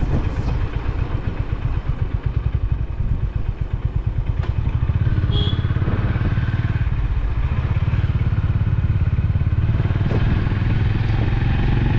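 Honda CB350RS's single-cylinder engine running as the motorcycle rides along, a fast low thudding beat. It gets louder and fuller about five seconds in and holds steady from there.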